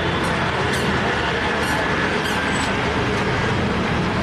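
Steady street traffic noise with a low rumble, with a few short clicks scattered through it.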